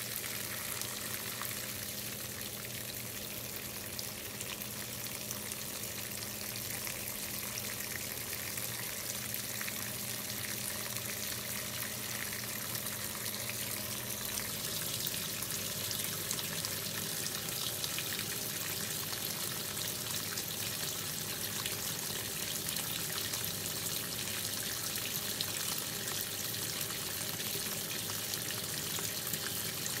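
KitchenAid top-load washing machine filling: water runs into the tub with a steady hiss as the level rises over the clothes. A low steady hum underneath stops about halfway through.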